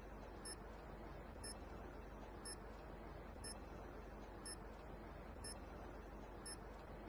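Faint, short electronic countdown ticks, one a second and seven in all, over a low hiss. This is the timer sound of a match-start countdown.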